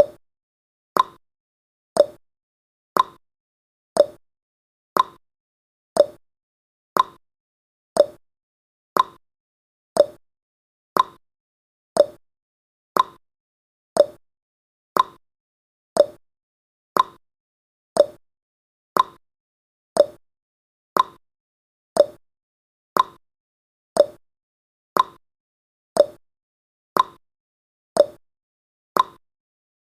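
Clock-tick sound effect of a countdown timer: one short, sharp tick each second, evenly paced.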